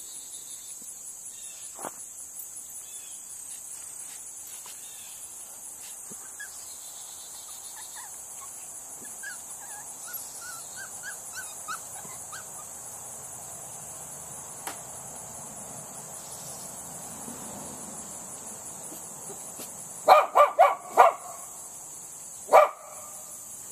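A Havana Silk Dog barking at traffic on the road: a quick run of four or five barks near the end, then one more bark a couple of seconds later. Steady insect chirring behind.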